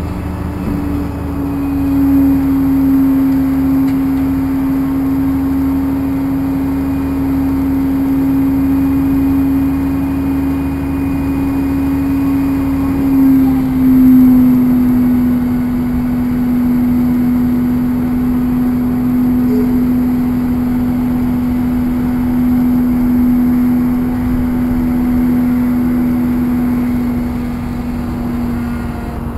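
A truck engine running steadily at raised revs with a strong even drone, which steps slightly lower in pitch about halfway through.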